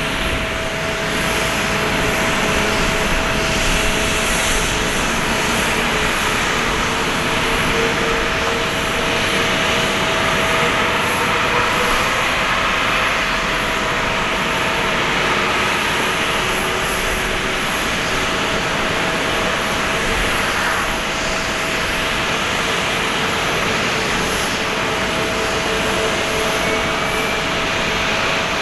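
Jet engines of an Airbus A340-600, its four Rolls-Royce Trent 500 turbofans, running with a steady roar and a steady whine laid over it.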